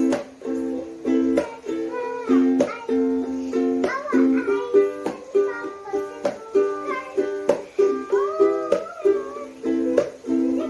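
Ukulele strummed in a steady rhythm of repeated chords.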